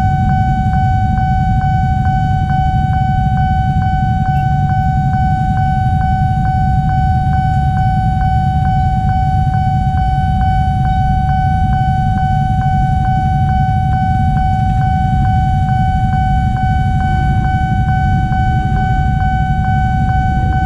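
Railway level-crossing warning alarm: a steady electronic ringing tone with a regular tick about twice a second, sounding continuously while the crossing is closed. Under it is the low rumble of idling motorcycle engines.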